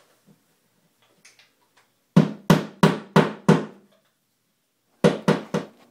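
Hammer blows on the wall, tapping in wall anchors for a mounting bracket: five quick strikes about two seconds in, then three more near the end, each with a short ring.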